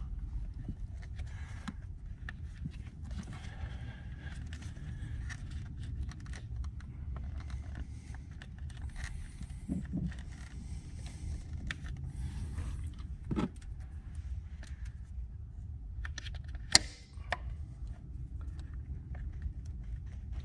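Rubber hose being worked by hand onto a fitting, lubricated with oil: scattered rubbing, scraping and small clicks of handling, with one sharp click about three quarters of the way through, over a low steady rumble.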